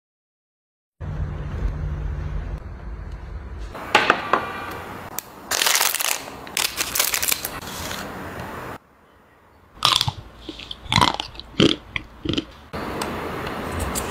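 Crisp cracking and crunching of a Magnum ice cream bar's chocolate shell studded with nut pieces, as a string of sharp cracks in the latter half. Earlier there is a steady low hum and a stretch of crackly rustling.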